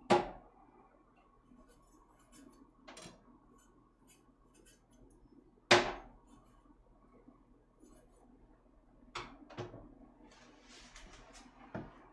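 Kitchen utensils knocking and clinking, with two loud sharp knocks, one at the very start and one about six seconds in, and a few lighter ones. Near the end there is a short stretch of scraping as ginger is peeled and cut on the cutting board.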